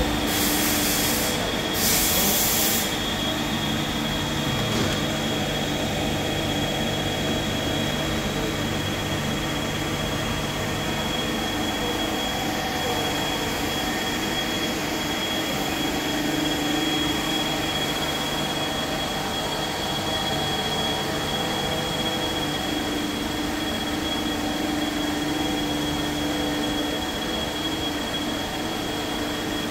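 Star SV-12 CNC Swiss-type lathe running: a steady machine hum with a constant high-pitched whine, its lower tones shifting a few times through the cycle. Two short hissing bursts come in the first three seconds.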